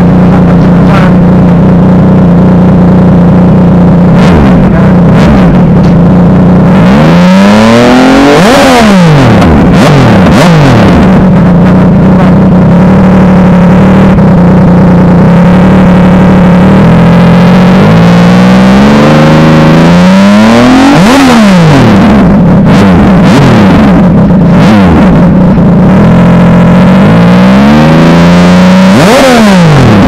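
Big-bike motorcycle engine with an aftermarket Villain muffler, idling steadily and revved in three bursts. Each rev rises and falls quickly back to idle: the first, a few seconds in, is a double blip, then one midway and one near the end.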